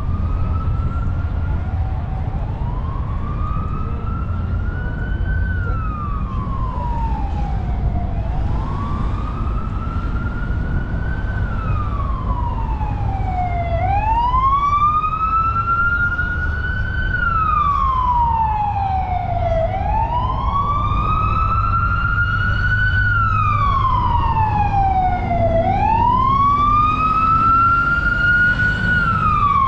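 A siren sounding a slow wail, its pitch climbing for about three seconds and falling for about three, repeating about every six seconds. A steady low rumble runs underneath.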